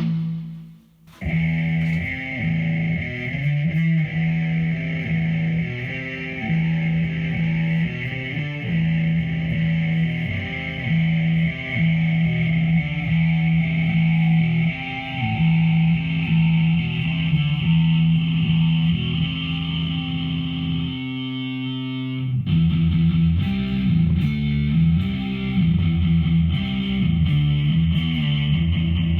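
Electric guitar played through a Behringer V-AMP PRO amp-modelling processor on a distorted preset: riffs and chords, with a short break about a second in.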